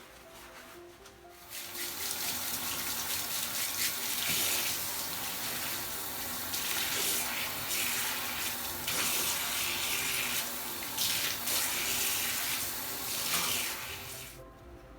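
Water running from a tap into a sink, starting about a second and a half in and stopping shortly before the end, over soft background music.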